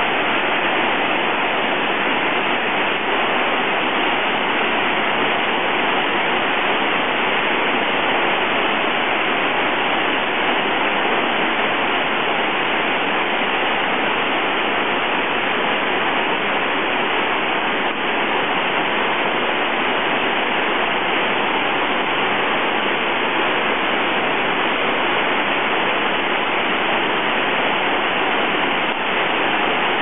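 Wide, low waterfall pouring over rock ledges into a pool: a steady, unbroken rush of falling water.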